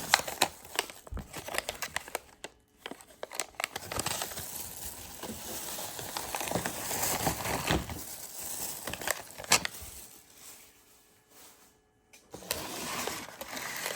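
Plastic and foil packaging crinkling and rustling as sealed collectible packs are handled, with scattered small clicks and crackles. It goes almost quiet briefly past the middle, then the rustling picks up again.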